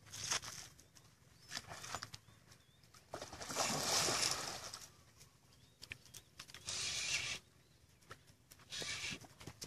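A hooked arapaima splashing and churning at the water's surface while being played on a rod, in several bursts, the longest and loudest about four seconds in. Birds chirp faintly between the splashes.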